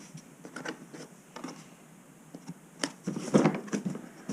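Plastic carry case of a small cordless chainsaw being handled and squeezed: scattered light clicks and taps, one sharp click a little under three seconds in, then a louder spell of rubbing and knocking.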